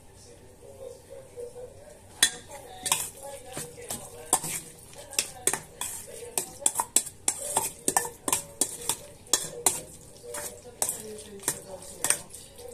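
A metal spoon stirring a thick, wet cauliflower mixture in a stainless steel mixing bowl. The spoon squelches through the food and strikes and scrapes the bowl in repeated sharp clinks, which begin about two seconds in.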